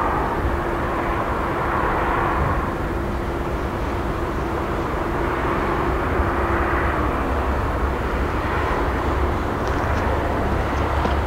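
Steady rumble of a train approaching from a distance down the track, the deep part of the rumble building near the end.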